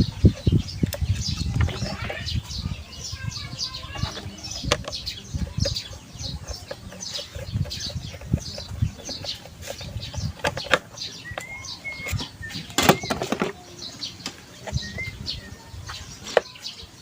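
Scattered knocks and clicks of exhaust fan parts being handled during reassembly, heaviest in the first second, with small birds chirping throughout and a short whistled bird call near the middle.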